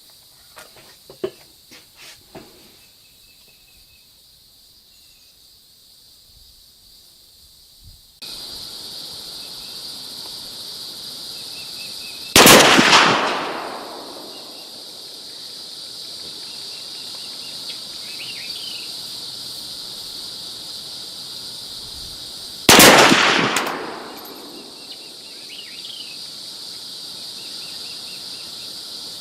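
Two rifle shots from a Chinese SKS firing 7.62x39 mm steel-cased, lacquer-coated 123-grain FMJ ammunition, about ten seconds apart, each ringing out and fading over a second or so.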